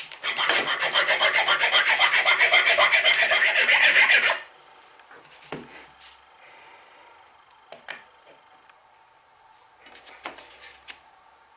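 Hand file rasping across the wooden base of an old coffin-smoother plane in rapid, even back-and-forth strokes, scraping off old gunk. It stops about four seconds in, leaving only a few faint knocks.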